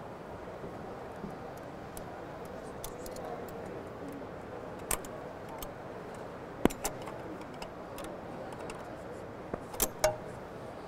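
Sharp metal clicks and taps from a Zebra ZE500 print engine's pinch and peel roller assemblies as their captured fasteners are undone and the rollers are pulled out. The clicks come singly at first, then as a quick cluster of three or four near the end, over a steady background hubbub.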